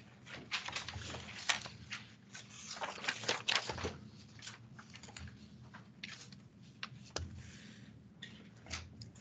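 A paper worksheet rustling and sliding on a desk as it is handled and repositioned: a quick run of crackles and taps in the first four seconds, then a few scattered, fainter rustles.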